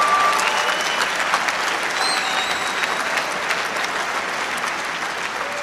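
Large theatre audience applauding, with a few cheers and whistles, slowly dying down.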